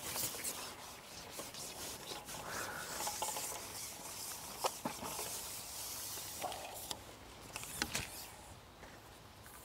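Soft rustling and rubbing noise with a few sharp clicks, one near the middle and two near the end.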